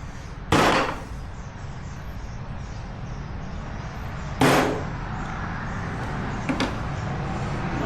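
Two sharp metal strikes about four seconds apart, each ringing briefly: a hammer driving a center punch to mark the center of the clutch basket's damper-spring rivets before drilling. A faint double click follows near the end over steady shop noise.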